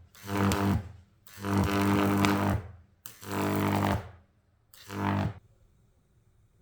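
High-voltage arcs from a microwave oven transformer, a deep electrical buzz in four separate bursts, each under a second except the second, which lasts over a second.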